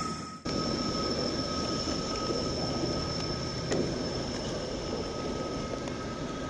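Ferromex intermodal freight train rolling past in heavy rain, a steady rumble and wash of noise with two thin, steady high-pitched whines over it. The sound dips out briefly about half a second in, then continues evenly.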